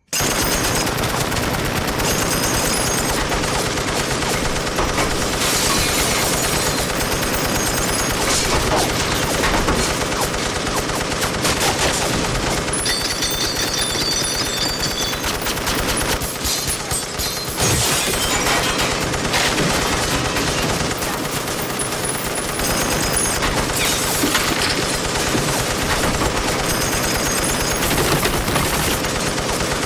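M60 7.62 mm machine gun firing long, sustained automatic bursts, with a brief lull about sixteen seconds in.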